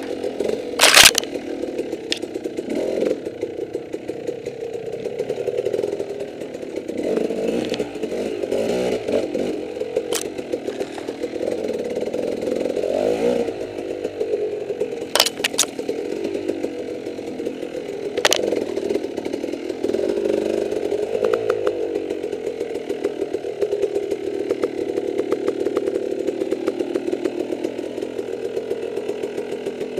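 Off-road dirt bike engine running at low revs, its pitch rising and falling a little as the throttle is worked through a tight, rocky rut. A few sharp knocks cut through, the loudest about a second in.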